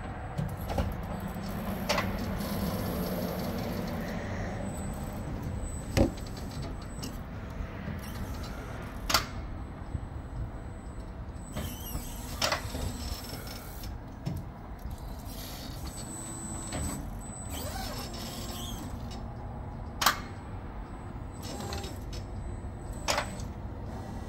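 Battery-electric stand-up forklift unloading a crated pallet from a cargo van: a low motor and hydraulic hum in the first few seconds over a steady low rumble, with sharp knocks and clunks of the forks and pallet every few seconds, loudest about six, nine and twenty seconds in.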